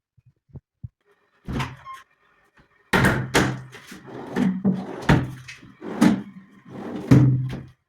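A series of loud thuds, about one a second, each followed by a short low ring.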